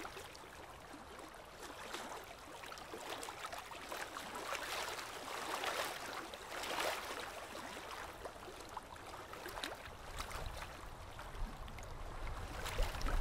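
Small waves sloshing and splashing around a camera held at the water's surface, the wash swelling and fading every second or two. A low rumble comes in about ten seconds in.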